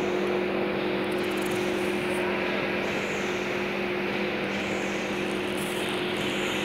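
Steady mechanical drone of circular looms weaving polypropylene fabric for gunny bags: a constant low hum with two steady tones under an even wash of machine noise.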